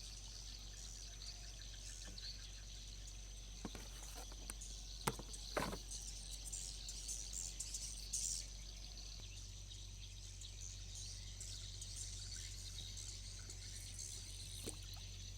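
A dense, noisy chorus of high chirps and twitters from many swiftlets, with a few sharper, louder calls around the middle. A steady low hum sits underneath.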